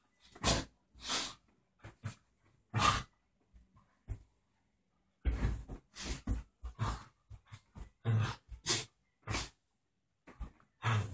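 Two Bearded Collies play-fighting at close range: a string of short, breathy puffs and scuffles at irregular intervals, with a pause of about a second partway through.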